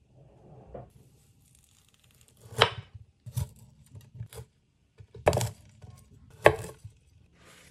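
Large kitchen knife cutting through raw broccoli stems and florets on a cutting board: several separate crunchy cuts, roughly a second apart, with quieter handling between them.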